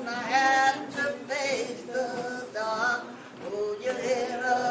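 Voices singing, apparently without instruments, with held notes that bend and change pitch every half second or so.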